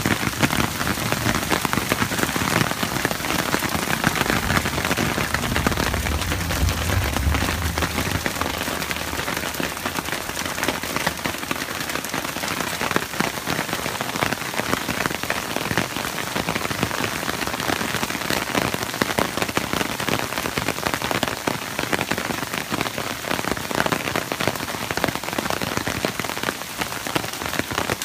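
Heavy downpour: dense rain pattering hard on surfaces, with a brief low rumble about five to eight seconds in.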